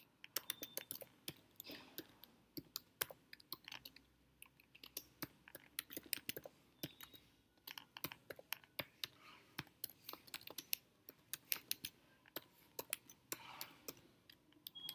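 Faint typing on a computer keyboard: quick, irregular runs of keystroke clicks with short pauses between them.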